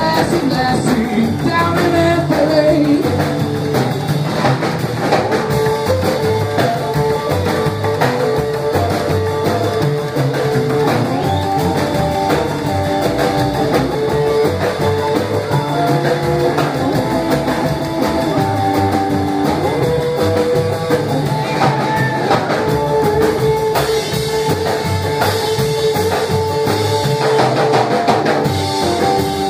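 Live band music: an upright double bass and a strummed acoustic guitar, with a man singing into a microphone.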